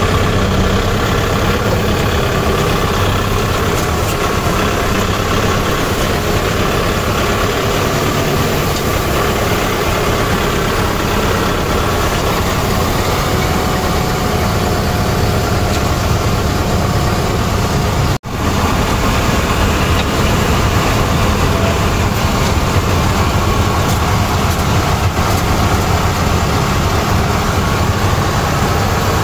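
Tractor engine running steadily with a low drone, heard from the driver's seat while the tractor is driven. There is a momentary break about eighteen seconds in.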